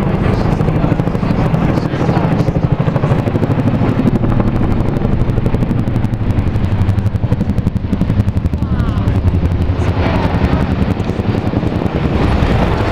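Military helicopters flying low overhead, their rotor blades beating in a fast, steady thudding pulse. A pair of AH-64 Apache attack helicopters comes into view near the end.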